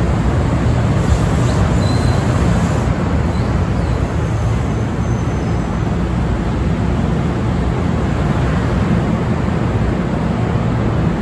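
NJ Transit bilevel passenger coaches rolling past along the platform: a steady, loud, low rumble of wheels on rails, even throughout.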